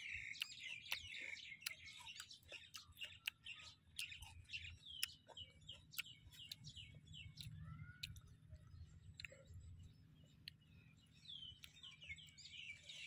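Small birds chirping over and over, mixed with many sharp clicks and crunches of raw vegetables being chewed.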